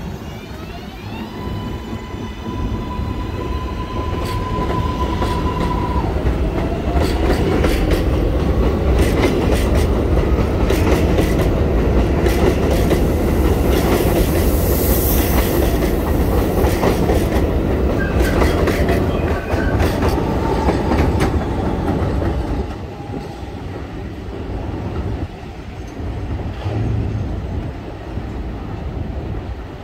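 An R142A subway train pulls away, its propulsion giving a rising, stepped whine that settles into a steady high tone. The cars then rumble past with wheels clicking over rail joints, loudest in the middle. The sound drops off sharply about three quarters of the way through as the last car clears.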